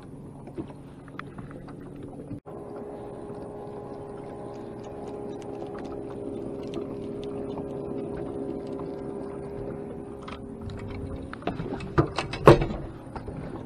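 Minn Kota electric trolling motor running with a steady hum, followed by a few sharp knocks on the boat deck near the end.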